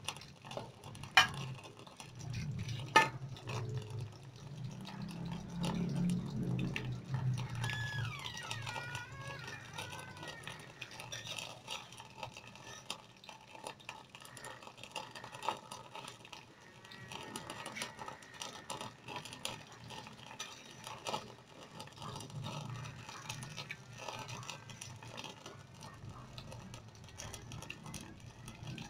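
Martabak frying in hot oil in an aluminium wok, a steady sizzle and crackle, with a metal spatula clinking sharply against the pan twice in the first few seconds.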